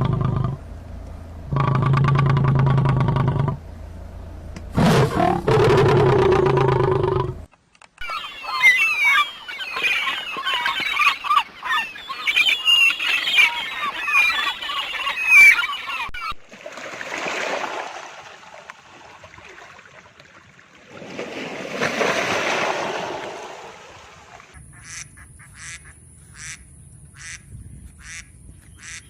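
A string of different animal calls, one clip after another: pitched calls for the first several seconds, then a stretch of many high, quick chirps, then two breathy rushing swells, and a run of sharp clicks near the end. Duck- or goose-like calls may be among them.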